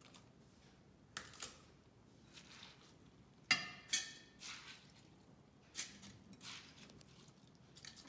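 Kitchen utensils clinking and clattering in a series of about seven sharp knocks, spread over several seconds. One knock rings briefly.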